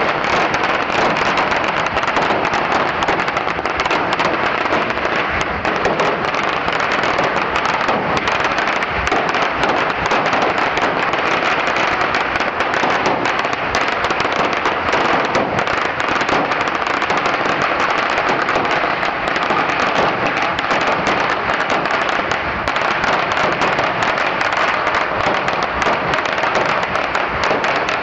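A pagara, a very long string of firecrackers, going off in a continuous rapid crackle of bangs that never lets up.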